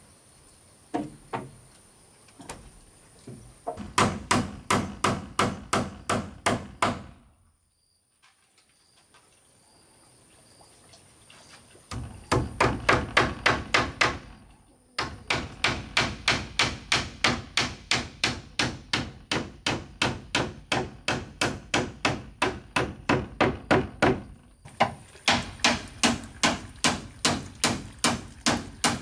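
Hand hammer driving nails into the wooden roof framing overhead: runs of sharp, ringing blows, about three a second, broken by a few seconds' pause about a third of the way in and brief breaks later.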